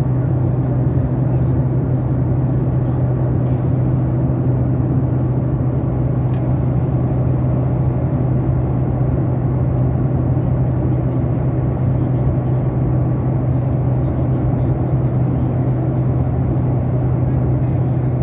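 Airliner cabin noise: a steady rush of engines and airflow with a strong, unchanging low drone.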